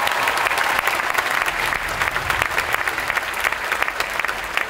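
Large audience applauding: a dense, steady wash of many hands clapping.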